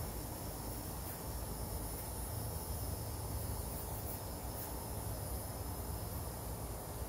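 Steady background noise: a low hum with hiss and a thin, steady high-pitched tone, with no distinct events.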